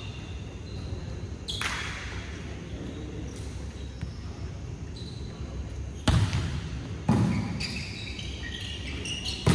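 Volleyball impacts on an indoor court during play: a sharp hit about a second and a half in, then two louder ones about six and seven seconds in, each ringing on in the hall's echo.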